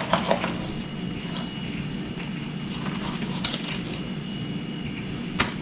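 Fillet knife cutting through a fish on a fillet table, with a few sharp clicks of the blade against the board, over a steady low hum.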